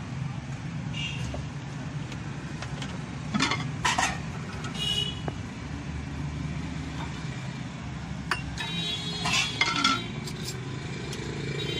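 Steel spoons and ladles clinking against metal bowls, jar lids and a ceramic plate as chutney and yogurt are spooned onto a plate. The clinks ring briefly and come in two clusters, a third of the way in and again near the end, over a steady low background hum.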